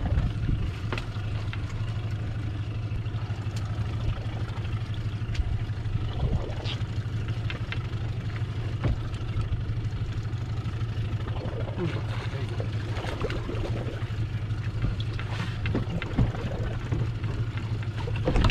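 Boat's outboard motor running steadily with a low, even hum, with water and wind noise over it.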